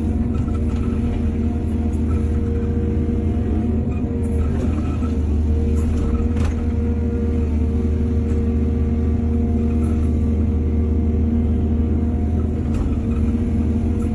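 Heavy diesel engine of earthmoving machinery running steadily with a deep rumble, with a few faint clinks.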